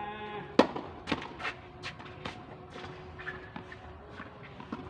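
A tennis ball struck sharply by a racket about half a second in, followed by several lighter knocks roughly every half second.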